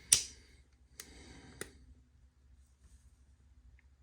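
Handling of a pocket knife: one sharp click, then two lighter clicks about a second later and half a second apart, with a faint rustle between them.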